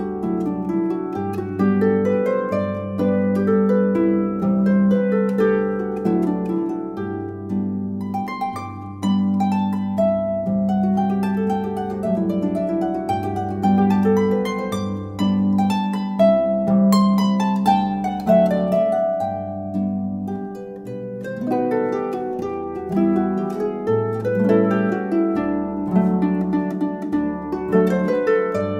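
Solo concert harp playing: a plucked, ringing melody over low bass notes that change every second or two.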